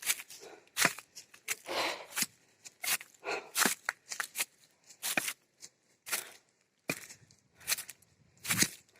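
Footsteps crunching on a dirt and gravel trail while hiking uphill, irregular steps about one or two a second.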